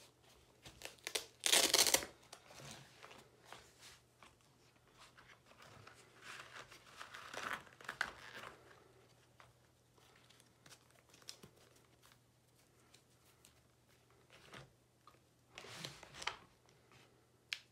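Crinkling and tearing handling noises in a few bursts, with scattered light clicks. The loudest burst comes about two seconds in, and others come around eight seconds and near the end.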